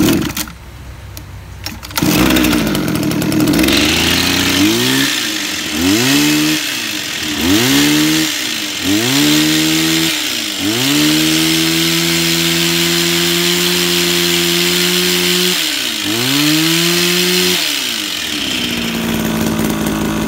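Small petrol engine of a double-bladed hedge trimmer, pull-started and catching about two seconds in. It is revved up and down in quick blips, held at high speed for several seconds, blipped once more and then drops back to a steady idle near the end. It has a punchy, throaty note that the seller puts down to its oversized air intake and filter box.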